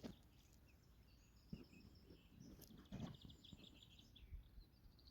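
Quiet dawn ambience with faint, distant songbird trills and chirps, and a few soft low thuds.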